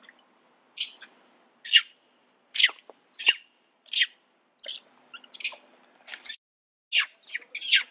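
Long-tailed macaques giving short, sharp, high-pitched alarm calls, about ten in a row, each under a second apart. It is the troop's alarm at a snake close by.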